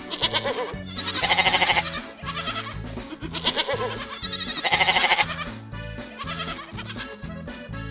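Goats bleating several times, in loud wavering calls, over background music with a steady beat.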